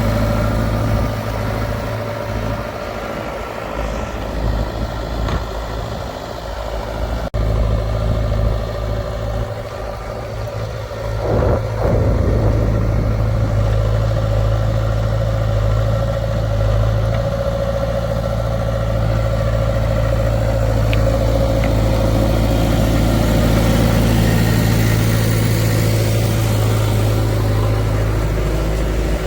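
Diesel engine of heavy farm or construction machinery running steadily, with a short clatter and the engine getting louder about a third of the way in.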